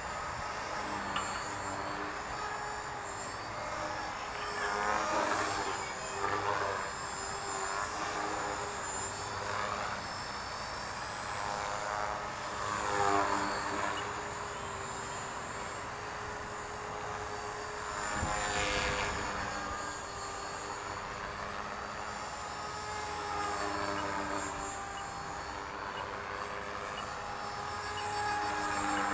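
Electric 450-size RC helicopter (HK-450 PRO V2) flying aerobatic manoeuvres. Its rotor and motor whine rises and falls in pitch, swelling every few seconds as it swoops and turns.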